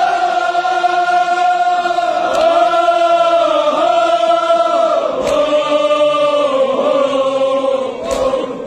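Many men's voices chanting a mourning lament together in unison, loud and drawn out, with a few sharp hits cutting through; the chant fades near the end.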